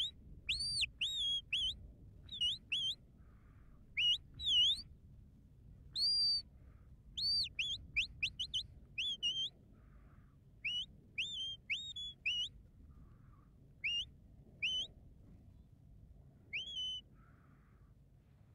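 Handler's whistle commands to two working sheepdogs: a quick run of short, sharp notes that rise, fall and swoop, coming thick and fast and then thinning to a few single calls in the last several seconds.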